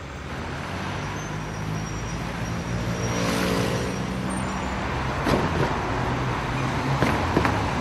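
Street traffic: cars running on a road with a steady engine hum, one swelling past about three seconds in. A few sharp knocks come near the end.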